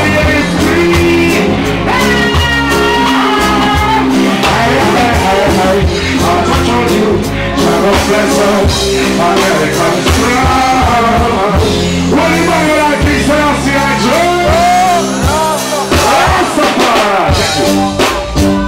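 Live reggae band playing (drum kit, bass, electric guitar and keyboards) with a man singing lead vocals over it through the PA.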